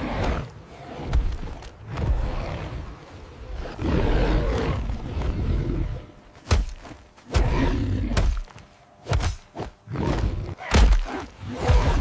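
Sound-effect roars of a giant terror bird mixed with heavy thuds, growing into a run of short, loud, separate blasts in the second half.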